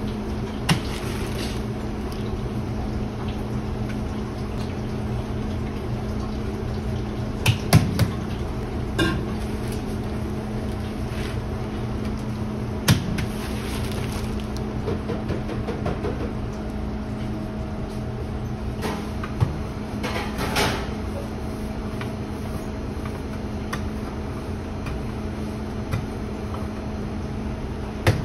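Bakery kitchen ambience: a steady machine hum, broken now and then by single knocks, with a quick run of clattering just at the end.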